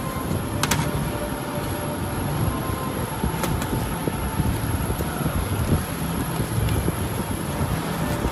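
Steady low rumble of workshop background noise with a faint high whine, and two light sharp clicks, about a second and three and a half seconds in, as metal parts are handled.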